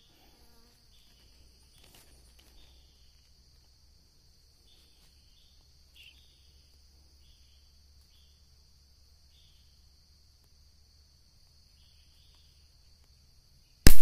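A steady high insect drone, with short high chirps repeating about once a second. Near the end, a single sharp, loud air-rifle shot is fired at a bird in the tree.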